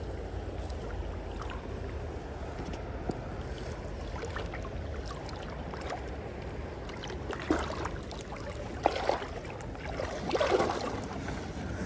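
River water flowing and lapping with a steady low rumble, then a few splashes and sloshes in the last few seconds as water moves around a floating cooler drawn in close.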